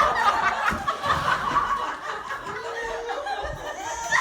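People laughing and chuckling, louder in the first two seconds and softer after.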